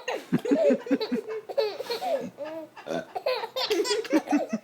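A baby belly-laughing hard in a string of short bursts, set off by an adult's deliberate burps.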